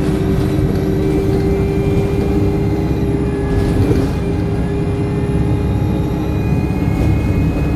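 Alexander Dennis Enviro200 bus heard from inside, its diesel engine running under way with a high turbocharger whine over it; the whine dips and then rises again over the last few seconds.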